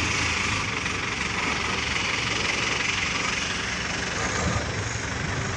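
Diesel engine of a mobile hydraulic crane running steadily under load while holding a heavy tank on its hook, with a steady hiss over the low hum.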